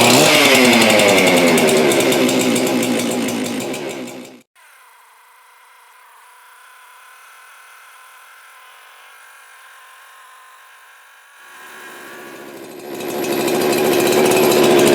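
Two-stroke chainsaw built with a Husqvarna 372XPW 51.4 mm cylinder, running loud at high revs. The sound cuts off suddenly about four seconds in, leaving only a faint steady hum. From about eleven seconds the engine builds again and revs up to full speed. The builder judges it a little lean and wants to richen the mixture.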